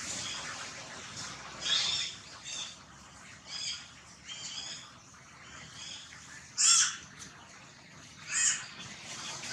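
A series of about six short, harsh animal calls, spaced irregularly. The loudest comes about two-thirds of the way through, and the rest are fainter.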